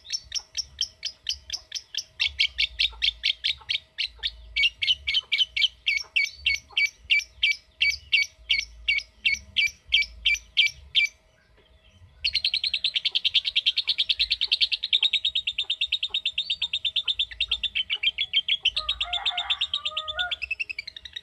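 Lovebird calling: a run of sharp, evenly repeated chips at a few per second, a short break about eleven seconds in, then a long, fast, unbroken chattering trill, the drawn-out 'ngekek' chatter that keepers prize.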